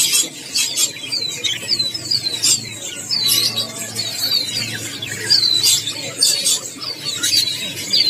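Many caged small birds chirping: a dense chatter of short, high chirps that flick downward, several a second, over a faint low hum.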